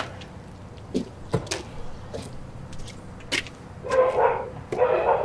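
A dog barking twice, loud, about four seconds in, after a few faint clicks and taps.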